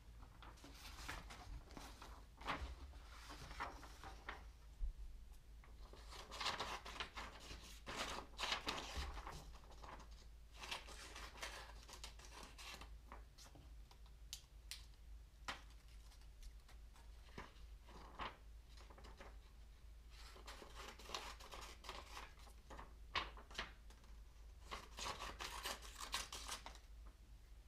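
Hands pulling off, pressing on and rubbing down pieces of Plasticine clay on a sculpture, heard as scratchy, rustling bursts of a few seconds each with short pauses between, over a faint steady low hum.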